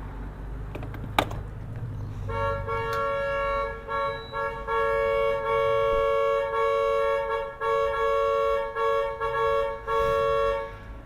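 Car horn honking on and off for about eight seconds, starting about two seconds in: long held blasts broken by short gaps, two notes sounding together.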